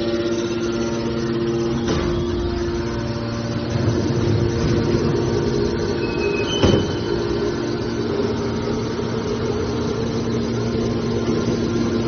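Hydraulic aluminium can baler running: steady hum of its motor and hydraulic pump, with a knock about two seconds in and a louder knock just past the middle, preceded by two brief high squeaks.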